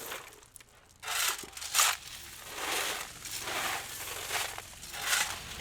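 Shovel digging into gravel and loading it into a cart: a series of scraping, crunching strokes about once a second.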